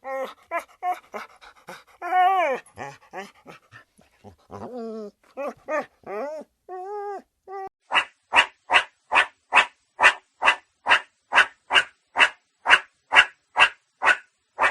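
An animal whining and yelping with pitch bending up and down, then barking in a long, evenly spaced run of about two and a half barks a second.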